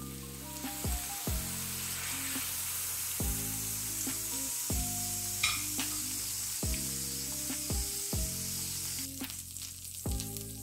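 Beef short ribs sizzling in hot oil in a cast-iron skillet, fully seared and being lifted out of the pan, over background music with slow changing chords. The sizzle drops for a moment near the end.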